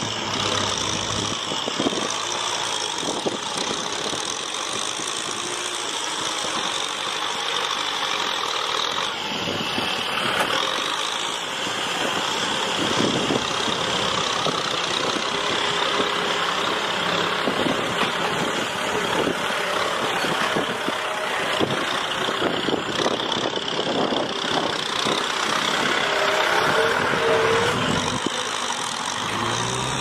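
Tractor engine running steadily.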